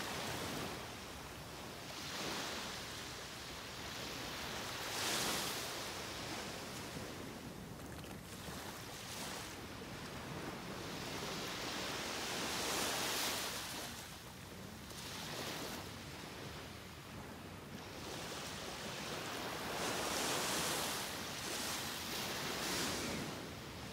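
Small waves breaking and washing up on a sandy beach: a steady surf hiss that swells and fades every few seconds.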